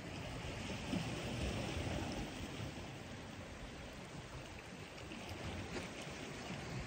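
Wind rumbling on the microphone with a soft wash of sea water against the shore rocks, a steady hiss with no distinct events.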